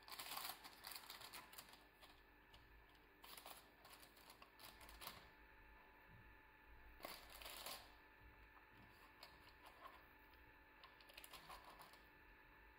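Faint, scattered light taps and parchment-paper rustles as balls of chocolate cookie dough are set down on a paper-lined baking tray, over quiet room tone.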